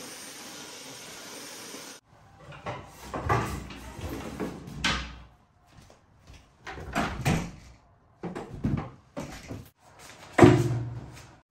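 Cordless stick vacuum running steadily for about two seconds, then cutting off. It is followed by irregular knocks, clunks and scrapes as a round table's sectioned top and legs are handled and set up and white chairs are put in place, with the loudest clunk near the end.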